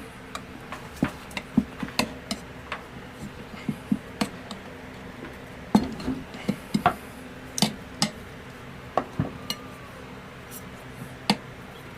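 Tire bar clicking and knocking against the wheel rim as a tiller tire's bead is levered back on over the tube, in irregular sharp metallic taps.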